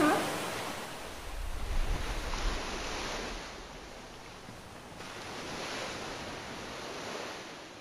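Rushing, churning sea water with a deep rumble about a second and a half in, swelling again around five seconds and fading near the end.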